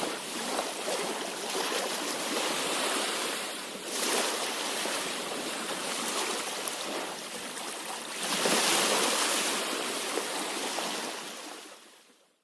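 Sea waves washing on a shore: a steady rush of surf that swells about 4 s in and again, loudest, about 8.5 s in, then fades out near the end.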